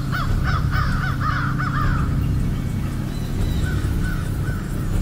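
Crows cawing: a quick series of about half a dozen caws in the first two seconds, then a few fainter caws near the end, over a steady low hum.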